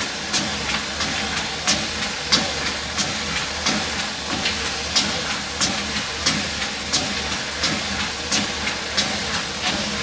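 Footsteps landing on a walking pad's moving belt at an even walking pace, about three steps every two seconds, over the steady hum of the treadmill's motor and belt.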